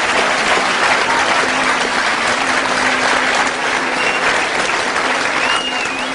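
Audience applauding steadily, a dense, sustained clapping from a large room full of people.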